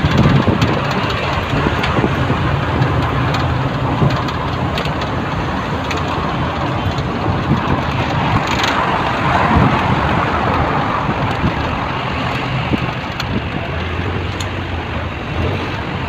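Steady road-traffic noise: a continuous vehicle engine rumble with road and wind hiss.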